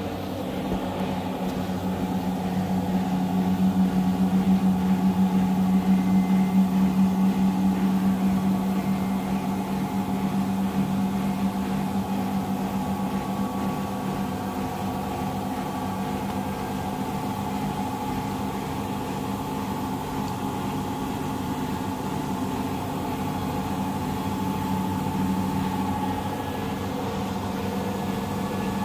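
Samsung EcoBubble front-loading washing machine running an empty quick-wash cycle: a steady mechanical hum that swells a few seconds in, then settles to an even level.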